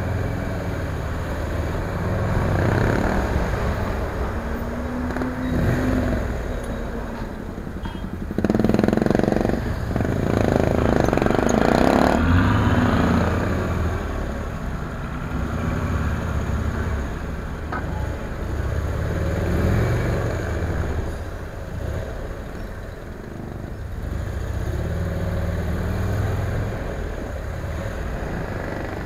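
Motorcycle engine heard from on the bike, its revs rising and falling again and again in stop-and-go riding, over surrounding traffic noise. A louder, noisier stretch of about four seconds comes about a third of the way in.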